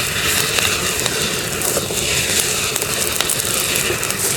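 Fire crackling and hissing steadily, with many small sharp pops.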